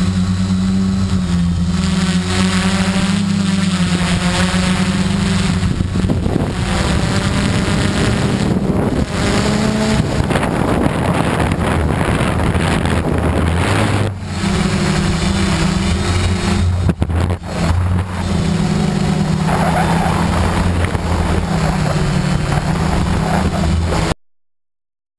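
A quadcopter's electric motors and propellers running, as heard by its onboard camera: a steady hum whose pitch steps up and down as the craft manoeuvres. It cuts off suddenly near the end.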